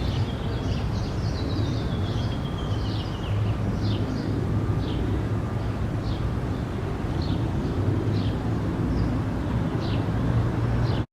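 Outdoor ambience: a steady low rumble and hiss, with short high chirps, like small birds calling, about once a second.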